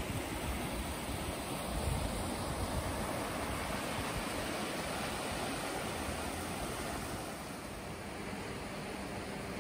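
Shallow river rushing over rocks, a steady hiss of running water, with wind rumbling on the microphone in the first couple of seconds.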